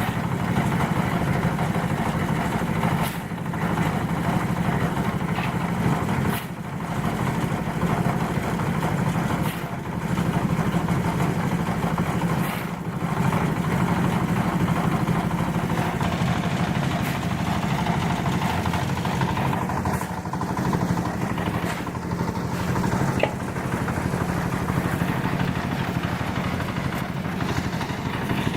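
An engine running steadily, with brief dips in level every few seconds.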